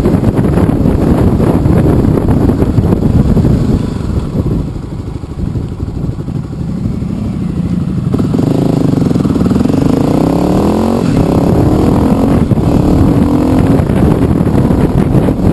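Motorcycle engine under way with steady wind noise. The engine eases off about four seconds in, then accelerates hard from about eight seconds in, its pitch rising through a gear change.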